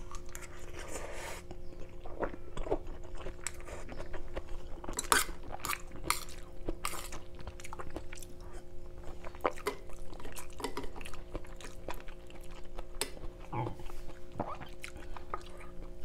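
Close-miked chewing of a mouthful of catfish and pickled bamboo-shoot curry, with short wet clicks and crunches scattered through, and a metal spoon tapping and scraping in the bowl near the end. A steady faint hum sits underneath.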